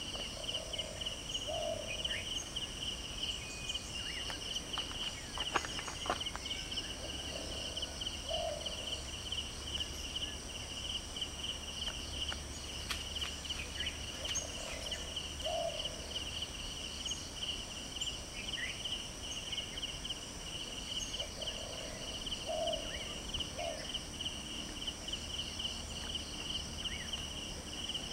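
Steady, pulsing insect chorus of crickets or cicadas. A short low call recurs every several seconds, and a few sharp crackles come about four to six seconds in.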